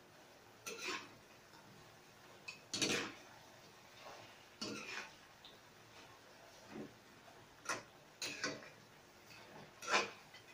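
A metal utensil scraping and clinking against a metal frying pan as chicken wings are stirred and turned, in irregular strokes every second or two, the loudest near the end.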